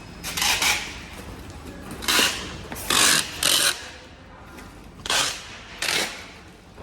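Handling noises from packing power adapters on a packaging line: about six short, sharp rasping bursts at uneven intervals.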